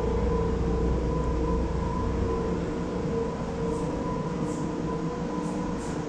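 Steady drone of a ship's engine-room machinery heard inside the engine control room: a low rumble with a constant hum.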